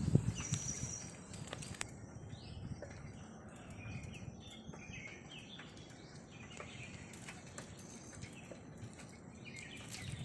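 Wind rumbling on the microphone, strongest in the first second and then steadier and softer, with faint bird chirps from about three seconds in.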